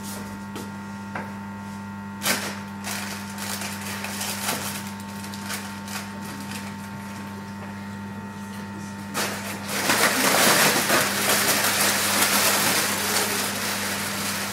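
A group of people handling small cans all at once: a dense, rain-like rustling hiss that sets in about nine seconds in and becomes the loudest sound. Before that, a steady low hum with a few scattered knocks.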